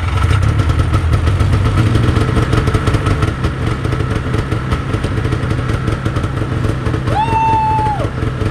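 Yamaha VMAX 600 snowmobile's two-stroke engine running steadily, just caught on a cold start after a squirt of starting fluid. A brief high-pitched held note sounds over it about seven seconds in.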